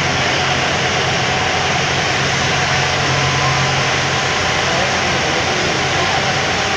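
Passenger ferry's engine running steadily under way, a low hum beneath a steady rushing noise of wind and water.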